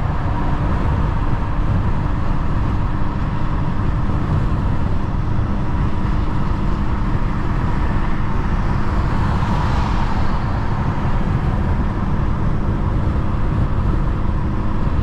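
BMW 435i with a tuned N55 turbocharged straight-six, engine and road noise held steady while driving, with no revving. A hiss swells briefly about two-thirds of the way through.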